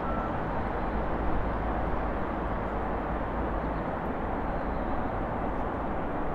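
Steady, even rumble of a Boeing 777F freighter's GE90 jet engines, with no clear change in pitch or level.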